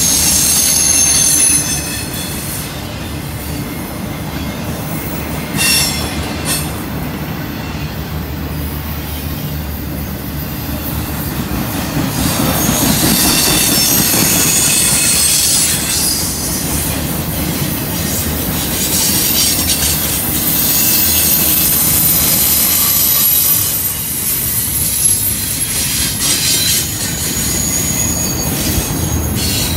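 Union Pacific intermodal freight train rolling past close by: a steady rumble of steel wheels on rail. High-pitched wheel squeal comes and goes several times, and there are a couple of sharp clacks about six seconds in.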